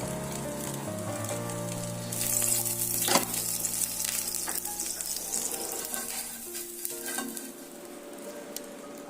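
Food sizzling in a hot pan: a loud hiss starts suddenly about two seconds in, with a sharp click soon after, then slowly dies down. Soft background music plays throughout.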